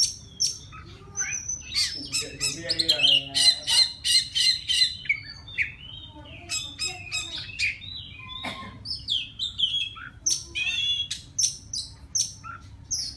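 Male oriental magpie-robin singing to call a female: a varied run of high whistled, sliding notes and rapid chirp series, loudest a few seconds in and busy again near the end.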